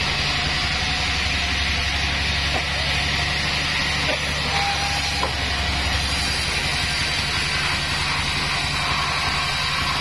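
Band sawmill running steadily, its motor humming under the hiss of the blade sawing lengthwise through a young sengon log.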